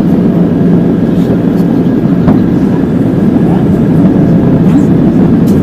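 Steady cabin noise of an Airbus airliner in descent: a loud, even drone of the underwing jet engine and rushing airflow, heard from a window seat.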